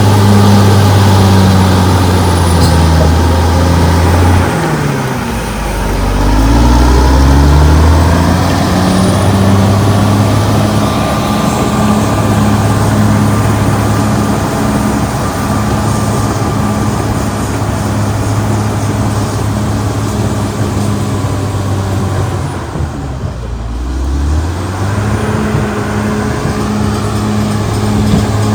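Caterpillar D6R XL bulldozer's diesel engine running hard under steady throttle. Its engine speed sags and drops twice, about four seconds in and again past twenty seconds, each time climbing back up to speed.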